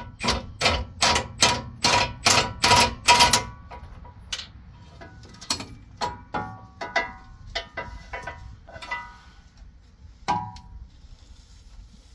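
Metal striking metal, about three sharp ringing blows a second, that stop after about three and a half seconds. Then scattered clinks and clanks of steel hand tools being handled against the truck's front suspension, with one more strike near the end.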